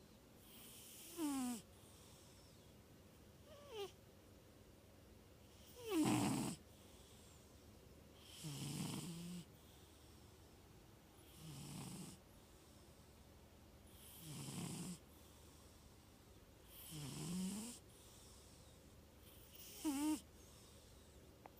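Large tuxedo cat, 25 lb, snoring loudly in its sleep: about eight snores, one every two to three seconds, some with a rising or falling whistle. The loudest comes about six seconds in.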